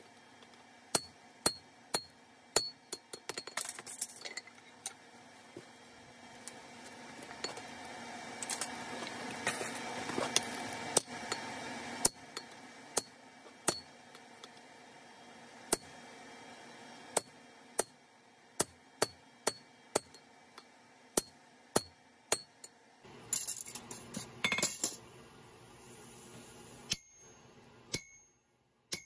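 Hand hammer striking a steel eye punch driven into a red-hot 4140 steel hammer blank on an anvil: sharp metal-on-metal blows, each with a brief high ring, mostly about a second apart with a quicker run of strikes part way through.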